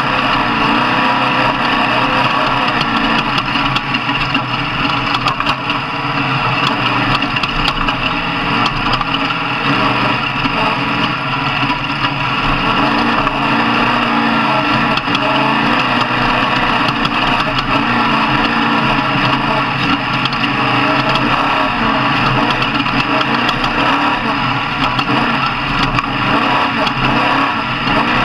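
Off-road truck engine running loudly and steadily, with no marked revs or pauses.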